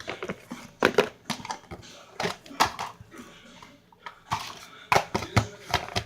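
Slime being squeezed and pressed by hand, giving irregular pops and crackles.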